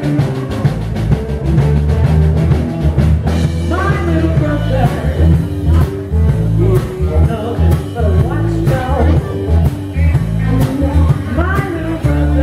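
Live blues band playing electric bass, electric guitar and drums, with a woman's voice singing from about three seconds in.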